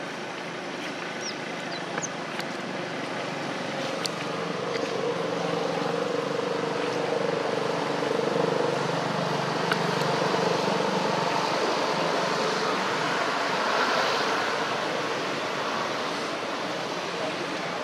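A motor vehicle's engine hum in the background, growing louder toward the middle and then fading, with a few faint ticks.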